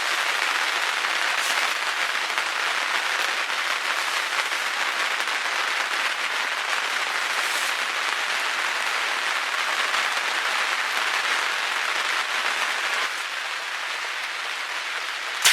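Heavy rain drumming steadily on the fabric roof of a pop-up hunting ground blind, heard from inside, easing slightly near the end.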